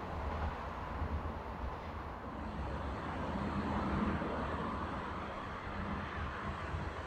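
Kobe Municipal Subway train running on the open-air track: a steady rumble of wheels and motor, with a low hum swelling briefly about halfway.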